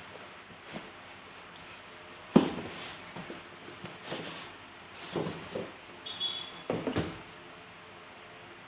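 Box packaging being handled as the monitor and its parts are taken out: a sharp knock about two and a half seconds in, then several short bouts of scraping and rustling with a brief squeak, ending about seven seconds in.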